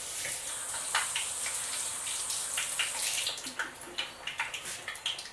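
Kitchen sink faucet running while hands are rinsed under it, shut off about three seconds in, followed by light clicks and handling noises as the hands are dried on a towel.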